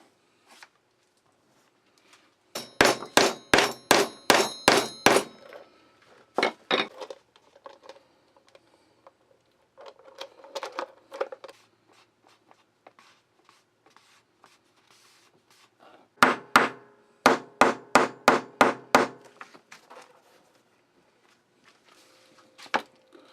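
Hammer blows on a metal leatherworking tool, in quick runs of about four strikes a second with a metallic ring: a run of about ten blows a few seconds in, a few scattered blows, and another quick run past the middle.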